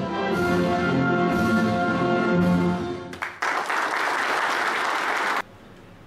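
Orchestral music with brass ends about three seconds in, and applause follows. The applause cuts off suddenly about a second before the end.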